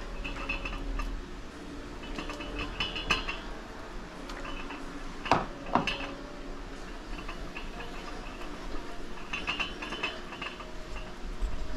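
Metal utensil clinking and scraping against a cooking pot in scattered, irregular clinks with brief ringing, with two sharper knocks a little past the middle.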